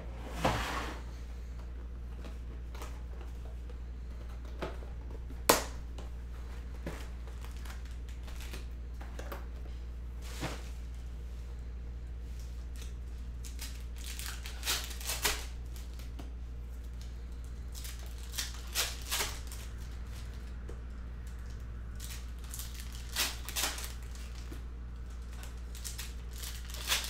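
2021 Upper Deck Goodwin Champions card-pack wrappers being torn open by hand in short rips every few seconds, through heavily glued tops that are rough to rip, with one sharp snap about five seconds in. A steady low hum runs underneath.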